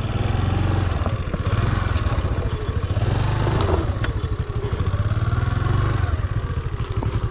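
Honda Activa scooter's single-cylinder four-stroke engine running, its pitch rising and falling as the throttle is worked, with scattered knocks and rattles.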